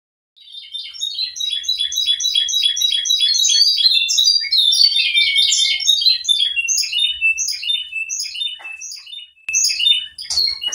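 Canary singing: fast runs of high repeated notes in rolling trills, loosening after about six seconds into slower, separate chirps.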